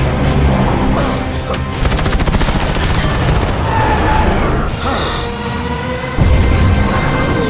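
Film action soundtrack: a fighter jet's automatic cannon fires one rapid burst of about a second and a half, over orchestral score and a low jet rumble. A loud low boom hits about six seconds in.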